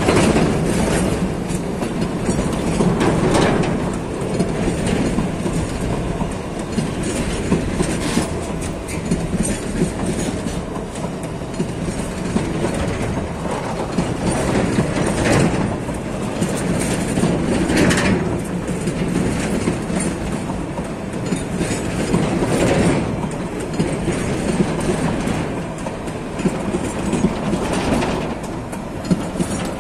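Freight train wagons rolling past, wheels clacking in repeated sets over the rail joints above a steady rumble.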